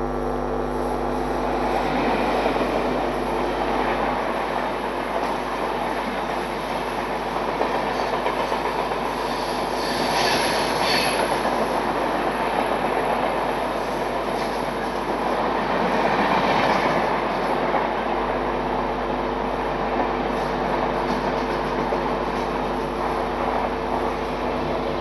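Express train hauled by an Indian Railways WAP-4 electric locomotive running past on the track: a steady rush of wheel-on-rail noise, swelling briefly about ten seconds in and again around sixteen seconds.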